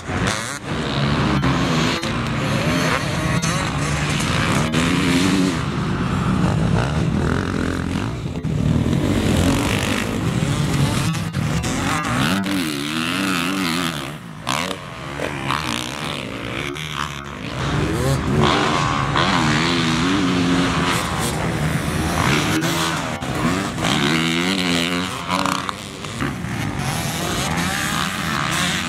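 Motocross dirt bike engines revving around a dirt track, their pitch rising and falling again and again as the riders open and close the throttle and shift.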